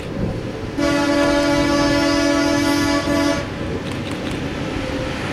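Diesel railcar sounding one long horn blast of about two and a half seconds, starting about a second in, over the low running of its engine as it moves off toward the road level crossing.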